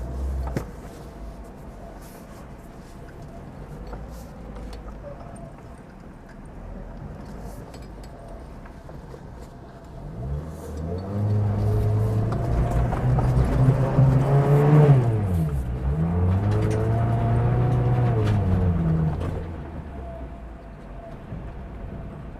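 Liebao Black King Kong SUV's 2.4-litre engine ticking over low with a few faint scattered clicks, then revving up hard about ten seconds in as it pulls up a climb; the revs dip sharply and rise again midway, hold, then ease off near the end.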